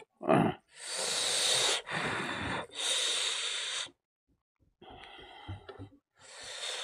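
A person breathing hard and noisily through the mouth: three long breaths of about a second each, a short pause, faint soft mouth sounds, then another breath starting near the end. This is the kind of breathing that the heat of king chilli (bhut jolokia) brings on while eating.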